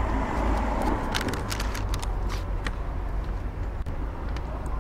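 Town street ambience: a steady low rumble of road traffic, with scattered light clicks.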